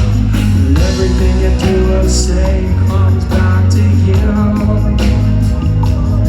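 Live reggae band playing at full volume: a heavy bass line, steady drum beat and guitar, with singing over it.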